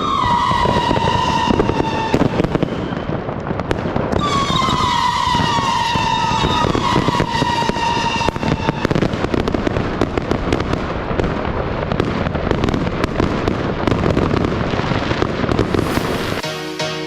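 Kingsmen Evolution 108-shot 25 mm fireworks cake firing in rapid succession: a dense stream of bangs and crackling. Whistles falling in pitch come at the start and again from about four to eight seconds in. Music comes in near the end.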